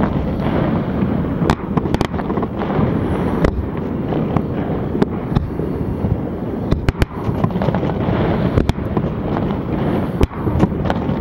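Aerial fireworks display: sharp bangs of shell bursts every second or two, some in quick pairs, over a dense, continuous noise.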